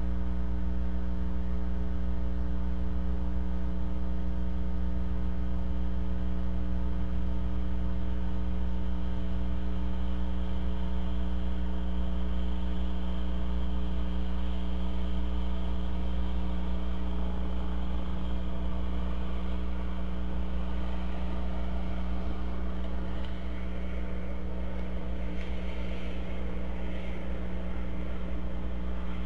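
Steady electrical mains hum with many evenly spaced overtones. A faint higher hiss builds in the second half, with a few faint scratchy sounds near the end.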